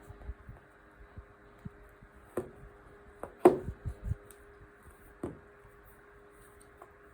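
Scattered light knocks and clicks of a potholder loom and weaving hook being handled as a loop is woven across, the loudest about halfway through, over a faint steady hum.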